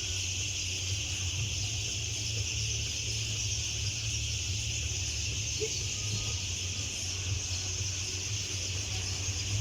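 Dense, steady high-pitched chorus of small animals, with no single call standing out, over a steady low rumble.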